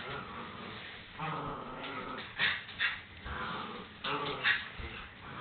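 A small dog growling and snarling in play as it tussles with a hand, in several short bouts, the loudest about halfway through and near the end.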